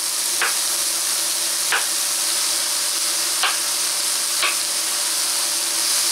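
Onion, tomato and jalapeño sizzling steadily in a stainless steel sauté pan, with four sharp knife chops through cauliflower on a wooden cutting board, spaced one to two seconds apart.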